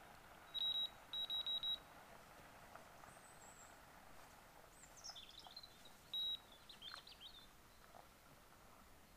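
Electronic bite alarms on a fishing rod pod beeping: one beep, then a quick run of four, and a single beep again about six seconds in, as the rods are handled. Small birds chirp faintly in between.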